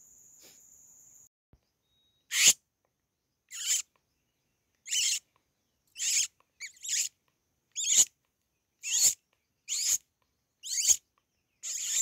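A series of short, high, squeaky animal calls, about one a second, each falling in pitch. Before them a steady high insect buzz runs and stops about a second in.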